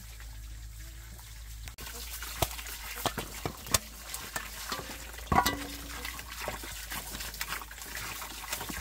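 Sweet potatoes being washed by hand in water: splashing and sloshing with frequent knocks and clicks. It gets louder and busier after an abrupt change about two seconds in.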